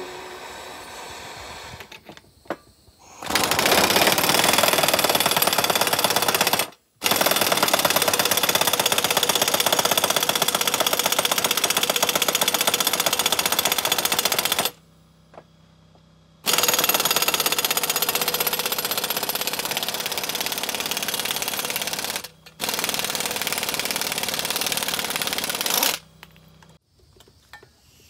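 Impact wrench hammering rapidly in four long runs, driving the screw of a U-joint press to push the bearing caps out of a driveshaft yoke; it stops for a moment twice and halts about two seconds before the end.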